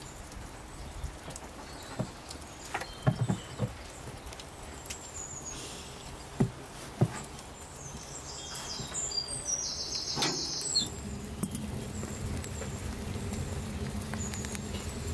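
Hands working soft, sticky dough in a glass bowl, with a few sharp slaps and knocks among the handling. Small birds chirp now and then, and a steady low rumble sets in about two-thirds of the way in.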